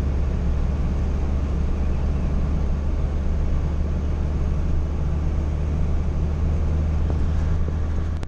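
Steady low drone of engine and tyre noise heard from inside the cabin of a Renault Safrane driving along at a constant speed.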